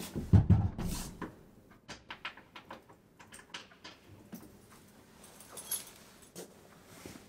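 A door thudding shut about half a second in, followed by a string of light irregular clicks and rustles.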